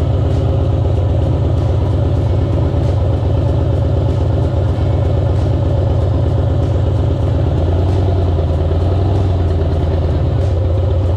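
Vehicle engine running steadily, a loud, constant low drone.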